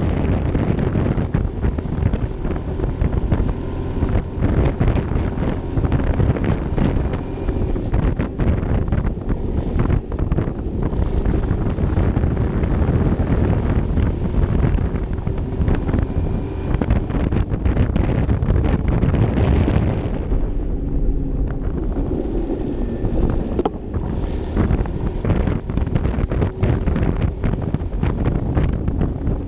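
Heavy wind buffeting on the microphone of a camera riding on a moving Vespa LXV 150 scooter, with the scooter's single-cylinder four-stroke engine running underneath. The higher wind rush thins briefly about twenty seconds in.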